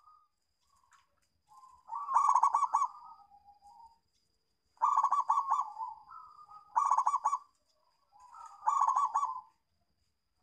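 Zebra dove (perkutut) cooing: four loud phrases of rapid, rolling coo notes about two seconds apart, with softer single coos between them.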